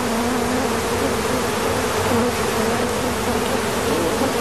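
A swarm of honeybees buzzing: a steady, dense drone with a slightly wavering hum. The bees are drawn in by queen pheromones.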